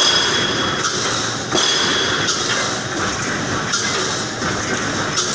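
Reinforcing mesh panel welding machine running: a steady mechanical clatter with a harder stroke about once a second. Some strokes are followed by a thin high whine.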